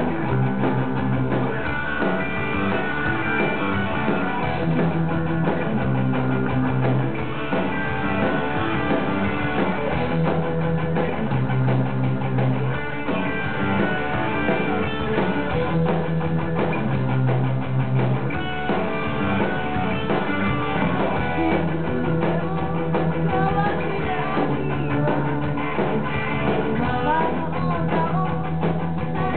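A punk band playing live, with electric guitar, bass guitar and drum kit going together.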